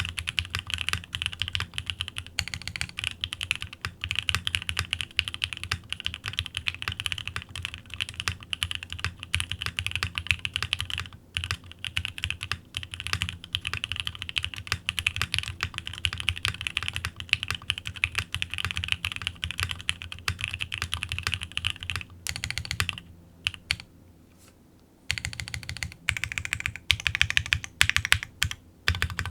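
Typing on a GOK 7V gasket-mounted mechanical keyboard with lubed and filmed Alpaca V2 linear switches, a polycarbonate plate and Cherry-profile keycaps: a dense, continuous run of keystrokes. The typing pauses for about two seconds near the end, then starts again.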